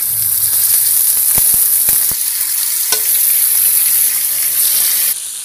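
Marinated tilapia pieces sizzling in hot oil on a flat tawa with curry leaves, a loud steady hiss with a few light clicks as pieces are laid in. The sizzle drops off abruptly near the end.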